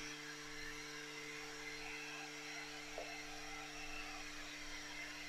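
Voxelab Aquila 3D printer's cooling fans humming faintly and steadily while the hotend cools after a cancelled print. There is a faint tick about three seconds in.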